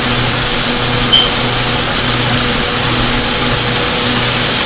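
Chicken drumsticks sizzling in hot frying grease in a skillet as they are turned over with a fork: a loud, steady hiss, with a low hum underneath.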